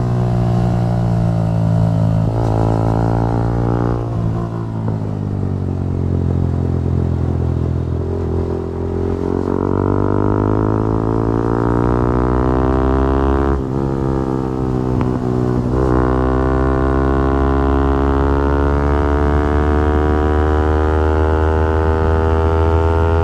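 Yamaha R15 V4's 155 cc single-cylinder engine under hard acceleration, its pitch climbing steadily and dropping sharply at several gear changes.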